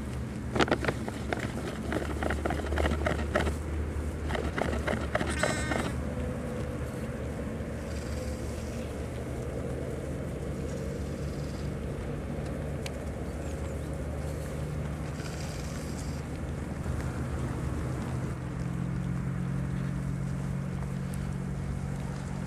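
Coburger Fuchs and Schoonebeker ewes and lambs bleating now and then. Dense rustling and clicking fills the first six seconds, and a low steady hum runs underneath.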